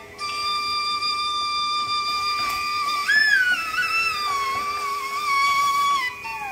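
Background music: a solo flute melody with long held notes, rising and wavering about three seconds in and sliding down near the end.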